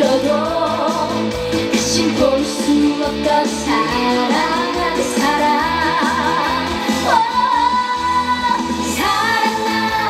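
A young female singer singing a song live into a handheld microphone over amplified music, the melody moving and holding long notes.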